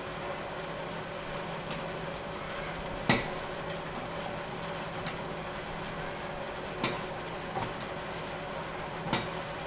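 Plastic filter-housing wrench and RO pre-filter housings giving three sharp clicks, about three, seven and nine seconds in, as the housings are loosened one after another. A steady hum runs underneath.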